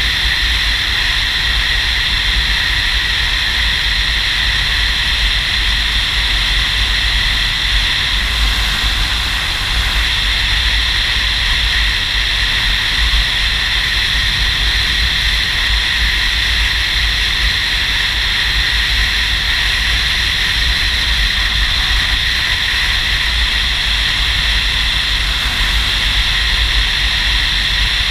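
Touring motorcycle riding at a steady speed: wind rushing over the on-board camera's microphone with the engine and road noise underneath, unchanging throughout.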